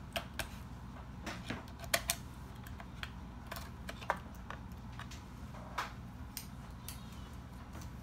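Scattered light clicks and taps of a small screwdriver against the laptop's RAM slot retaining clips and memory modules as the sticks are popped up and worked loose from the memory bay of an HP Pavilion dv7. The sharpest clicks come as a close pair about two seconds in.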